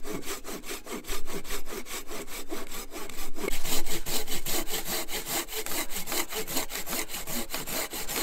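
Silky Big Boy folding hand saw cutting through a fallen log in quick, even strokes.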